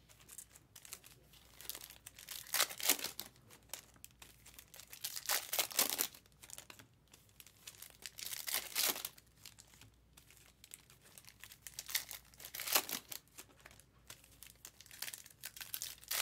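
Wrappers of Topps Chrome Cosmic trading-card packs crinkling and tearing as they are ripped open by hand, in several short bursts a few seconds apart.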